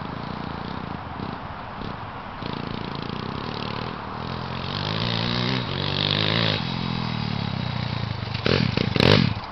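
Pit bike's small single-cylinder engine revving as it rides across the field, its pitch rising and falling with the throttle and getting louder as it comes closer. It ends with a few loud, short bursts.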